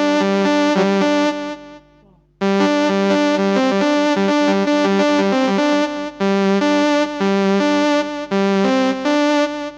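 Electronic keyboard playing a short repeated melody in a synth voice. The notes break off about a second and a half in, which is the player cutting the phrase short. They resume after a second's silence.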